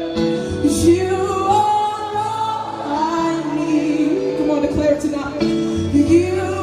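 A live band playing with a singer at the microphone over strummed acoustic guitar, with bass notes stepping underneath.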